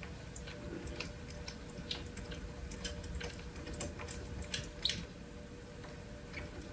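Light, irregular clicks of a wrench and the loosened brass nozzle being handled at a 3D printer's hot end, over a faint steady hum.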